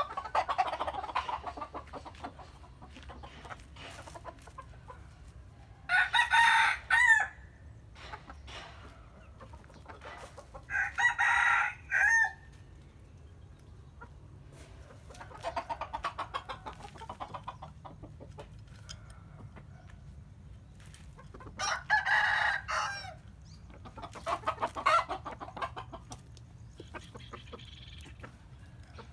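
Roosters crowing: three loud crows, each about a second and a half long, with fainter crows between them, over a steady low hum.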